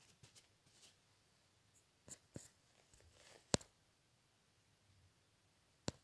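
Faint scratching of a marker and then a pencil drawing on paper, with a few sharp clicks and taps; the loudest click comes about three and a half seconds in and another near the end.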